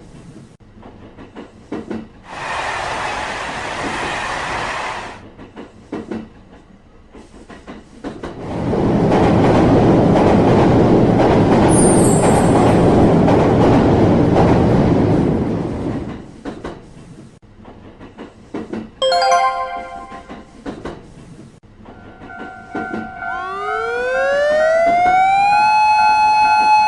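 Train sound effects: a short hiss, then a loud passing-train rumble lasting about eight seconds. Near the end a siren-like tone glides up in pitch and holds.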